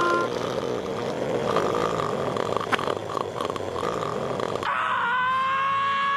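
A cartoon character's long, raspy, noisy vocal sound, held without a break. About four and a half seconds in, it gives way to a high, held cartoon scream.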